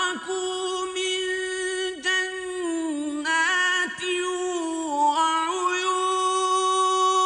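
Solo male voice chanting the Quran in Arabic in the melodic tajweed style, with long held notes that bend and step up and down through ornamented turns and a couple of brief breaks for breath.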